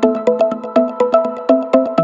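Electronic background music: a quick run of plucked synthesizer notes, about five a second.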